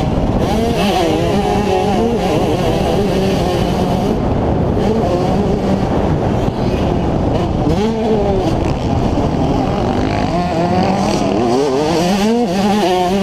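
Two-stroke single-cylinder engine of a 2003 Yamaha YZ125 motocross bike revving hard under race throttle, its pitch rising and falling again and again as the rider shifts and rolls off and on the throttle.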